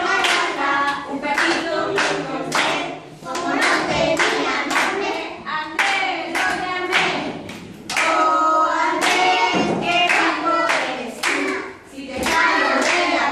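A group of preschool children singing a song in Spanish together, clapping along to a steady beat.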